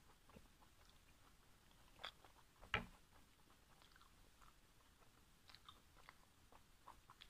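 Faint mouth sounds of someone chewing steamed pork momo dumplings: small wet clicks scattered throughout, with one sharper click a little under three seconds in.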